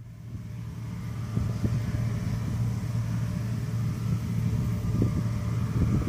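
John Deere CTS rice combine harvester running in the distance, a steady low engine hum that fades in over the first second or so.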